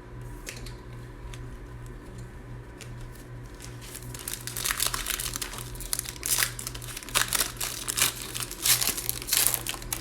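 Plastic wrapper of a pack of trading cards being torn open and crinkled. The crackling starts about four seconds in and goes on in quick irregular bursts.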